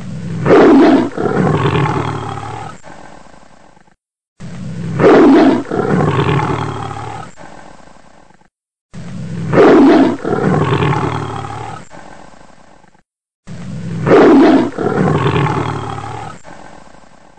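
Recorded big-cat roar, the same roar looped four times about every four and a half seconds. Each starts loud and fades away, with a short silence before the next.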